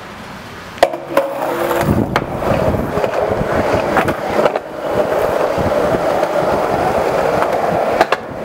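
Skateboard wheels rolling on a concrete walkway, a steady rolling noise that begins about two seconds in, after a couple of sharp knocks of the board. There is a single sharp clack near the end.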